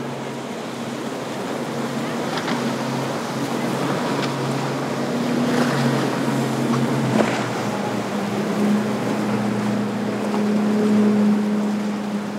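Motorboat engines running through an inlet over a wash of waves and wind, with one engine note giving way to another about eight seconds in and a few brief splashes.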